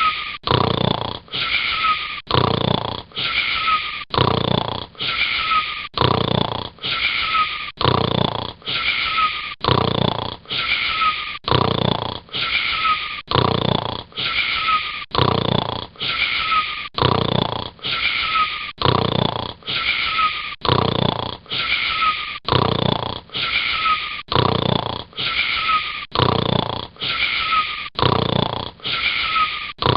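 Snoring, fast and very regular at a little over one breath a second, each breath carrying a whistling wheeze that falls slightly in pitch.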